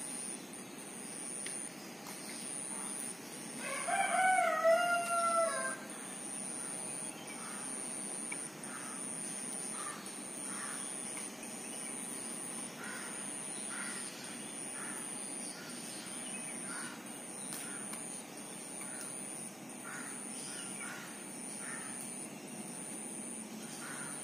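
A rooster crows once, about four seconds in, a call lasting nearly two seconds. A high-pitched trill pulses on and off throughout, with faint scattered chirps.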